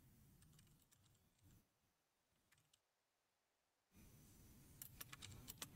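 Mostly near silence; from about four seconds in, faint, quick clicks of typing on a computer keyboard.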